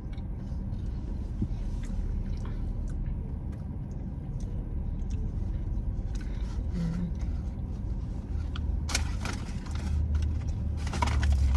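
Steady low rumble of a car cabin with the engine running, with faint small clicks and two short rustling noises near the end.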